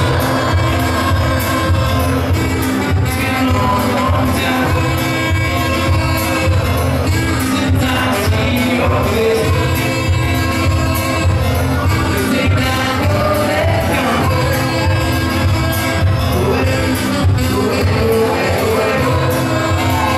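Live band music: a folk-pop song with a steady drum beat, bass, saxophone and singing.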